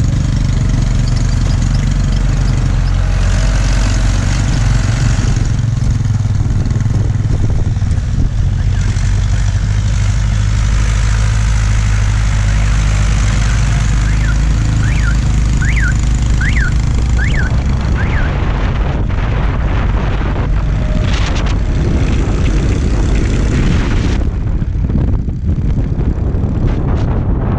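Hitachi excavator's diesel engine running with a steady low drone, the working noise of the machine around it. About halfway through come five short high chirps.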